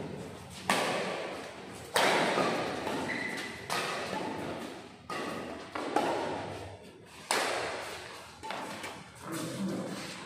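Badminton rackets striking a shuttlecock in a doubles rally, about eight sharp hits a second or so apart, each ringing out in a large hall.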